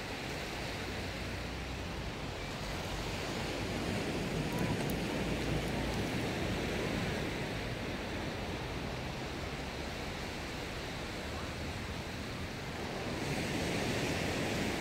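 Surf washing on a sandy beach, mixed with wind rumbling on the microphone; the noise swells a few seconds in and again near the end.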